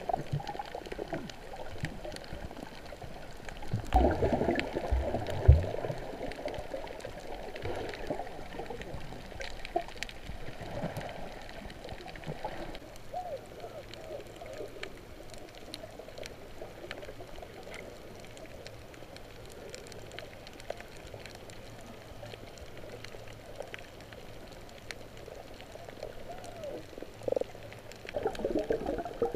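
Muffled underwater water noise heard through a camera in its housing: gurgling and bubbling with faint scattered clicks, a few heavy thumps about four to five seconds in, and louder bubbling near the end.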